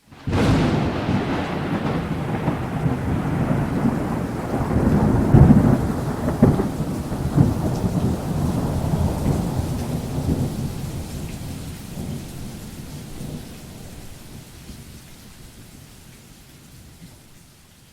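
Thunder sound effect: a sudden crack, then a long rolling rumble that swells several times about five to eight seconds in and slowly fades away.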